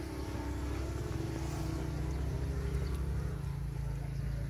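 Steady low motor or engine hum.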